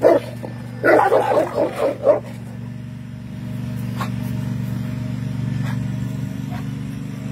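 Dog barking excitedly at another dog across a wall: one bark, then a quick run of sharp barks about a second in. After that a vehicle engine runs with a steady low hum.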